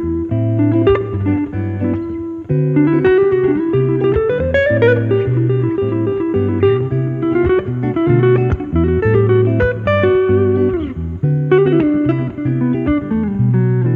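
Instrumental background music: a guitar melody with notes that bend and slide in pitch, over a steady bass line.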